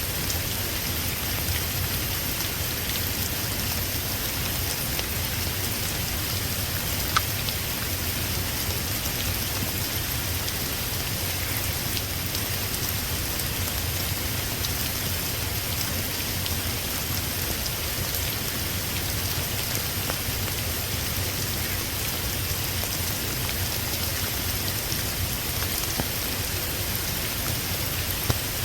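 Steady rain falling on a surface, an even hiss with a low rumble underneath and a few single drop ticks standing out.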